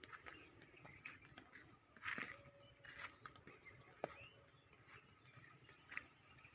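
Faint rural outdoor ambience: a steady high insect drone with scattered short bird chirps and a few clicks, the loudest a brief burst about two seconds in.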